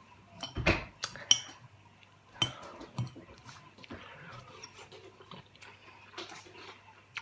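A few short light clicks and knocks in the first three seconds, then fainter scattered ticking.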